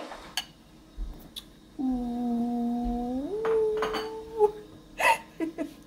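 A voice hums two held notes, a lower one for about a second and a half and then a step up to a higher one, about two seconds in. A few light clinks of a utensil against a mixing bowl come before and after.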